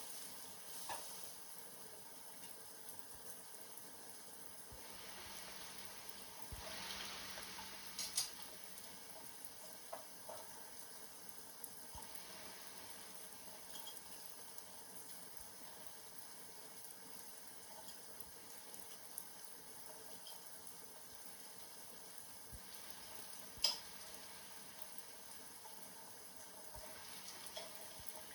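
Faint, steady hiss of rain, with a few sharp drip-like clicks.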